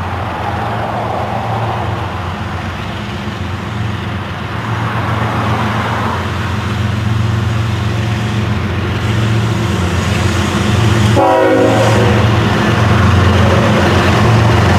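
Freight train led by Union Pacific and CSX diesel locomotives approaching, the engines' low steady drone growing louder as they draw near.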